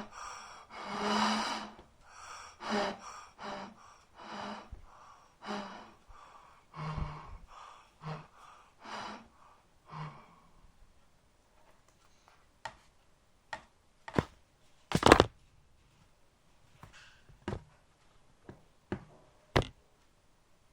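A person's breathy sighs and gasps, about one to two a second, fading out after about ten seconds; then scattered sharp knocks and clicks, the loudest about halfway through.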